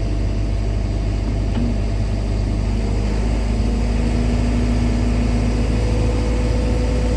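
Heavy-equipment engine idling steadily, with a steady whine that comes in about three seconds in and holds.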